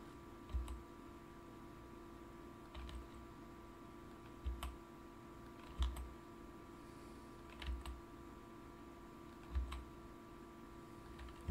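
Computer keyboard keys and mouse buttons clicking now and then, about seven presses a second or two apart, over a faint steady hum.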